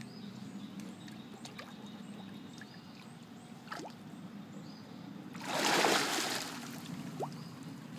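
Water lapping quietly around a dog standing in shallow water, then about five and a half seconds in a loud splash lasting about a second as the dog lunges at a fish, settling back to lapping.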